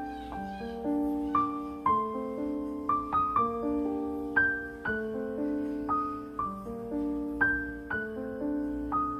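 Background music: a gentle piano piece, a melody over held chords at an even, unhurried pace.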